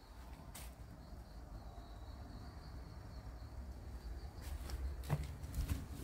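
A faint, steady, high-pitched insect call with a low rumble under it. There is a single click about half a second in, and a few footsteps and knocks in the last second and a half.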